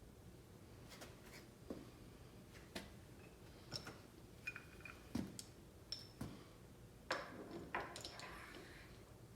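Faint, scattered metallic clinks and knocks of hand tools and lathe parts being handled, a few with a brief ringing tone, with a short run of clattering and scraping about seven to eight seconds in.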